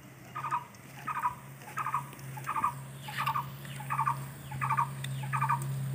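A bird or small animal calling over and over, a short chattering chirp repeated about eight times at a steady pace, starting about half a second in, over a steady low hum.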